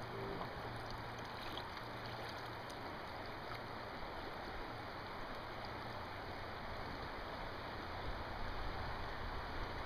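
Steady rush of the Snake River's current flowing and rippling around a drifting raft, a little louder near the end.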